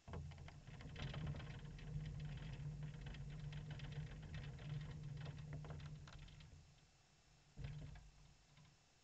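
Racing kart with its engine off being pushed across concrete: a low rolling rumble with a fast, irregular clicking and rattling of the chassis and chain, dying away after about six and a half seconds, then a short rattle about a second later.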